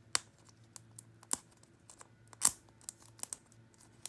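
Toy packaging being handled and opened by hand: scattered sharp clicks and taps, the loudest three about a second apart.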